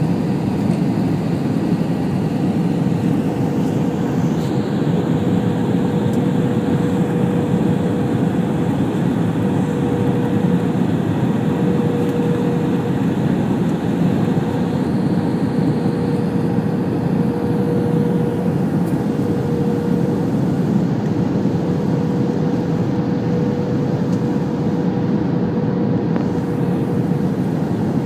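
Steady cabin noise of an Airbus A321 on approach: engine noise and rushing air, with a steady hum running over it.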